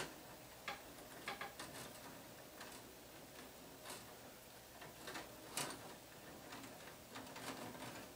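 Faint, irregular clicks and light taps of electrical wires being pushed aside and tucked into a metal breaker panel.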